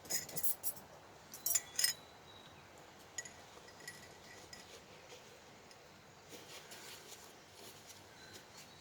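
Light ringing clinks of camp cookware and utensils being handled, in two quick clusters in the first two seconds, then a few faint taps.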